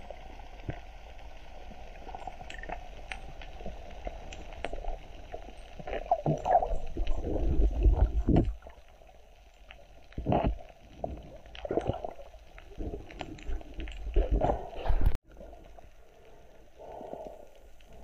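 Underwater sound picked up by a camera in the sea: a steady low wash of water with scattered sharp clicks, broken by several loud gurgling bursts of moving water, the longest lasting about two seconds. It drops suddenly to a quieter wash about three quarters of the way through.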